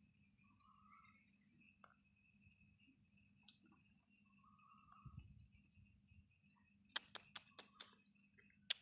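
A small bird chirping, a short high chirp repeated about once a second. About seven seconds in there is a quick run of sharp clicks, over a faint steady hum.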